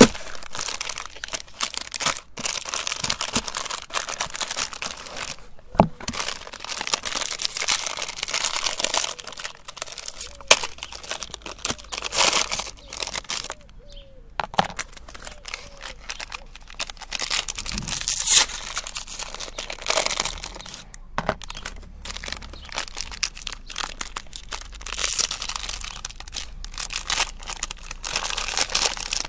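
Foil-lined ice cream bar wrappers crinkling and tearing as they are pulled open by hand, in bursts with short pauses between them.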